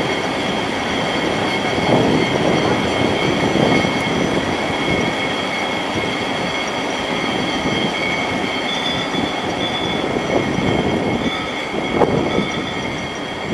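Great Orme Tramway's cable-hauled tramcar running towards the station on its rails, with a steady rumble and a few knocks from the wheels on the track. A thin steady whine runs under it, which fits the haulage cable running over the pulleys between the rails.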